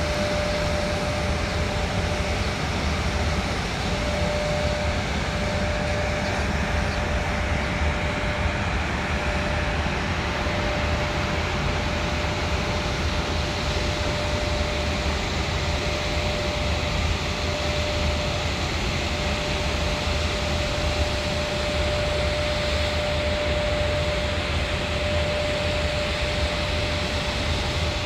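Freight train hauled by an electric locomotive rolling past: a steady rumble and hiss of wheels on rails, with a steady high-pitched hum over it.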